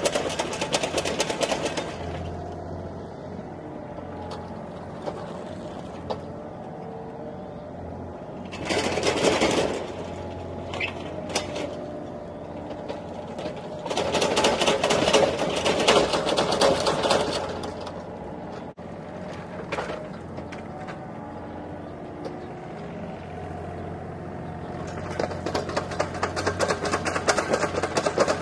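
Remote-control toy excavator running: a fast, buzzing engine-like rattle, with louder surges of small electric motors and plastic gears whirring as it drives on its tracks and swings its arm, about a third of the way in and again around the middle.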